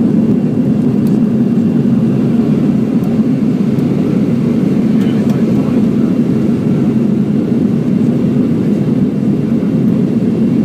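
Lufthansa Airbus airliner after takeoff: a loud, steady low rush of engine and airflow noise with no change in pitch.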